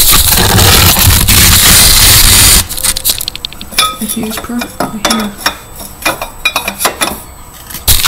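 Loud rubbing and handling noise on the microphone for about two and a half seconds, then a run of light metallic clicks and clinks as a metal pipe is worked into place on a Razor MX350 electric dirt bike's steel frame.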